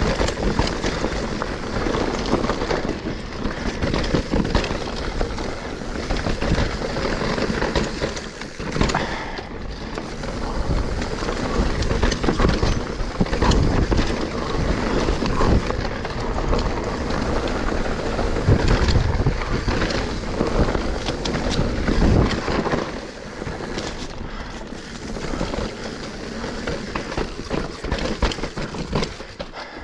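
Mountain bike ridden along a dry, dusty dirt singletrack: tyres rolling and crunching over dirt and roots, the bike rattling over bumps, with wind on the microphone.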